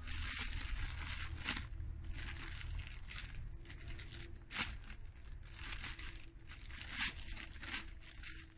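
Plastic tarp crinkling and rustling in irregular bursts as it is handled and pulled over a log wall.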